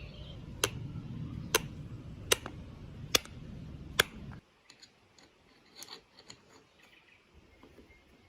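Five sharp taps or clicks, evenly spaced under a second apart, over a low steady hum that cuts off suddenly about four seconds in; after that only a few faint small clicks.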